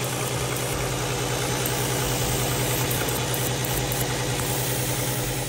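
Audi 3.2-litre V6 engine idling steadily. It has a vacuum leak through a hole at the back of the valve cover, which the owner puts down to a broken PCV valve diaphragm and blames for its rough, uneven idle.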